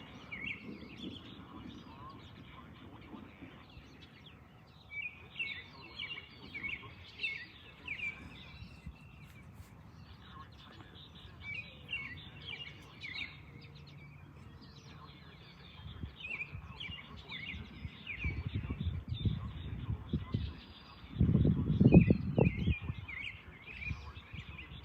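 Songbirds singing short chirping phrases every few seconds. Late on, two loud low rumbles come in, the second the loudest.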